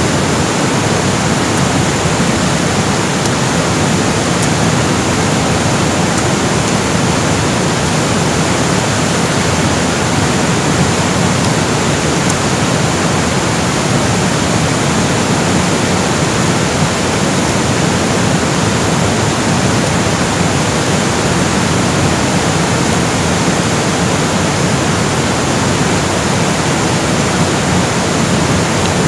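Steady, loud rush of flowing water, an even hiss and roar that does not change.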